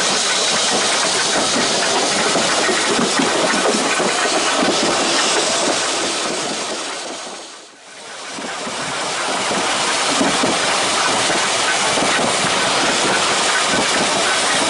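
Manx Electric Railway electric trams running along the narrow-gauge track, heard from an open car: a steady rolling noise of wheels on rail with clatter. The sound fades out and back in about eight seconds in.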